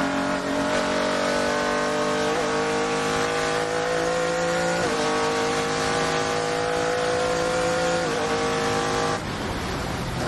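Ginetta G50 GT4 race car's V6 engine heard from inside the cockpit under full acceleration. The engine note climbs steadily and drops sharply three times as the driver shifts up through the gears. Near the end it falls away as the driver lifts off for braking.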